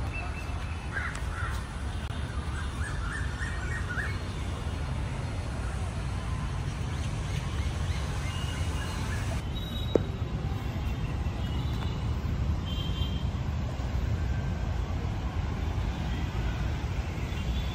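Outdoor ambience: a steady low rumble with birds chirping in the first few seconds and scattered faint calls after. A single sharp click comes about ten seconds in.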